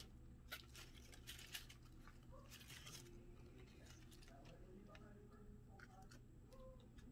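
Faint rustling and crisp clicks of pet rats moving about in a potted lettuce plant's leaves, over a low steady room hum.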